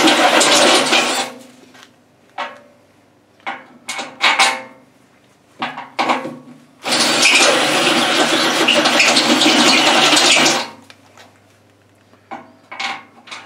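Cordless drill with a step bit cutting through the steel of a tractor loader bucket to enlarge a bolt hole. It runs in two passes, the first stopping about a second in and the second from about seven to ten and a half seconds in, with light metal clinks between and after.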